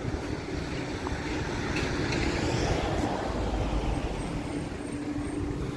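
Road traffic noise: a vehicle going by, its rumble swelling to a peak around the middle and easing off towards the end.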